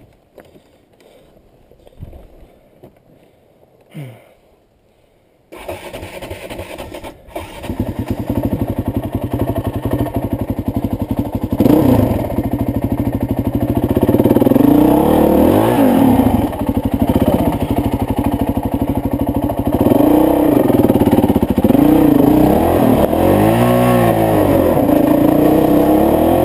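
Honda CRF450X's single-cylinder four-stroke dirt-bike engine starting about five seconds in, idling briefly, then pulling the bike along a rocky trail with the throttle opened and closed again and again, so the engine note rises and falls.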